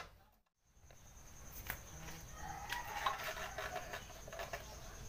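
Faint light clicks and knocks of hands lifting a scooter's loosened fuel tank, over a steady high-pitched whine. The sound drops out for a moment near the start.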